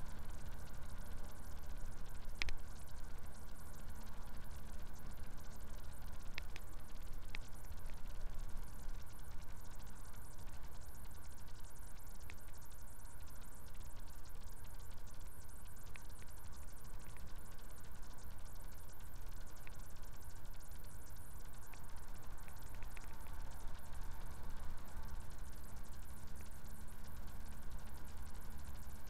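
Steady low drone of a Kenworth truck's diesel engine and road noise, heard inside the cab at cruising speed, with a few sharp ticks scattered through.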